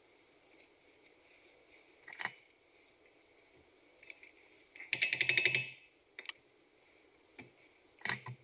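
Metal hand tools and wheel hardware clinking: a ringing metallic clink about two seconds in, a rapid run of clicks for just under a second around the middle, a couple of light taps, and another ringing clink near the end.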